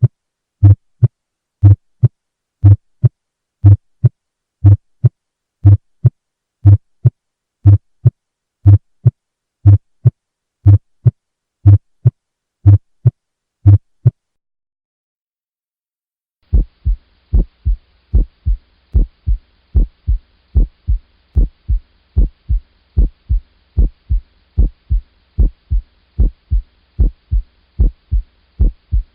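Recorded heart sounds: a steady lub-dub at about one beat a second that stops about 14 seconds in. After a gap of about two seconds, a faster lub-dub starts over a faint steady hiss and hum.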